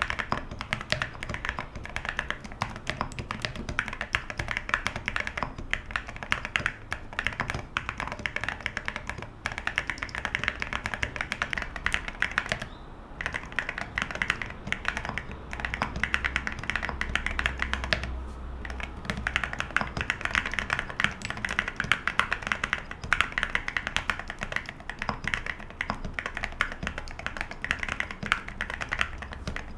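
Typing on a Geonworks Frog Mini mechanical keyboard with hand-lubed OwLab London Fog switches, an aluminum plate and Cerakey ceramic keycaps. The keystrokes come in a fast, continuous run with a deep sound, pausing briefly twice around the middle.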